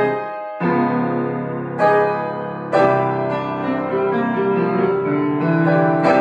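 Grand piano played four hands by two players: loud chords struck about once a second at the start, then fuller sustained playing with another accented chord near the end.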